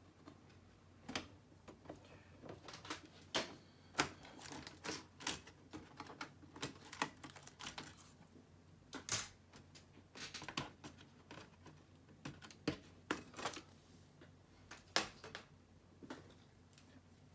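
Irregular sharp clicks and taps on hard plastic while working on a laptop, coming in clusters with short pauses between them.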